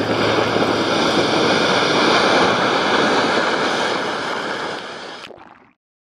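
Big typhoon-swell wave breaking: a steady rush of whitewater and surf that fades out near the end.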